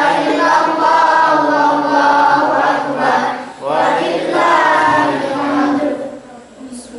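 A boy chanting Qur'an recitation in a slow, melodic style, with a short breath pause about halfway through; the voice fades near the end.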